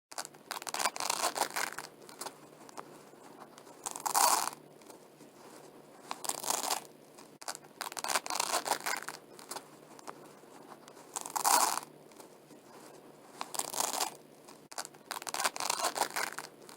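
Velcro hook-and-loop strips being pulled apart again and again: a run of short ripping tears, about one every two seconds.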